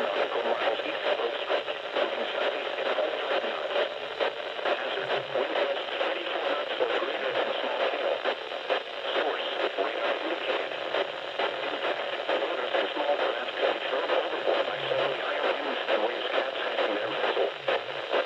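Steady hiss and static from a radio receiver on a weak, marginal signal. It sounds thin and muffled, with a fluttering texture and no clear tone or voice coming through.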